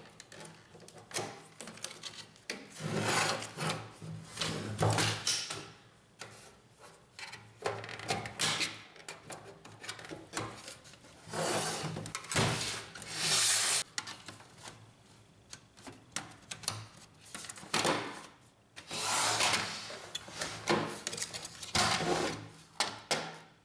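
Plastic side panel of an HP LaserJet P1102 laser printer being worked off its snap hooks: repeated scraping and rubbing of plastic on plastic, with sharp clicks as the hooks let go.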